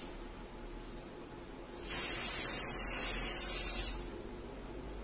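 Pressurised aerosol can of Savlon ethanol-based surface disinfectant spray, one steady hissing spray lasting about two seconds, starting about two seconds in.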